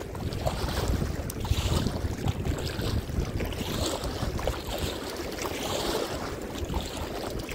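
Wind buffeting the microphone in a steady low rumble, with river water lapping and splashing against a kayak in soft washes about once a second.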